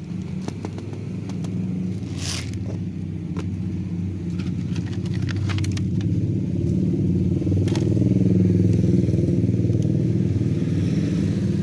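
A motorcycle engine running steadily with a low rumble, growing louder about two-thirds of the way through. About two seconds in there is a brief rattle of dry cat kibble being poured onto concrete, with a few light clicks after it.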